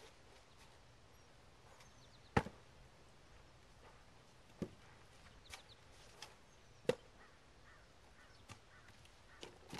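A horse's hooves knocking on a low block as it steps up onto it: a few separate sharp knocks, the loudest about two seconds in and others near five and seven seconds.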